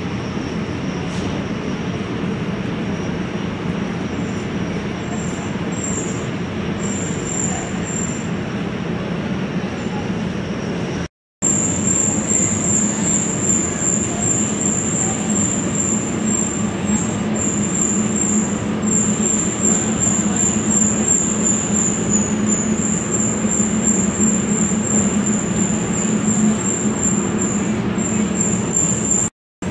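Steady outdoor traffic noise, a continuous hum of passing vehicles, with a thin high-pitched flickering whine above it. It cuts out to silence for a moment about 11 seconds in.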